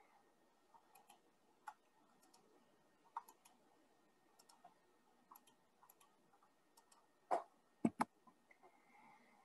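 Computer mouse clicking while a slideshow is being worked: faint scattered ticks, then one louder click and a quick double click about three quarters of the way through.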